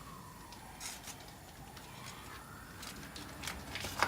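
Faint distant siren wailing slowly down and then back up in pitch, with a few sharp clicks, the loudest near the end.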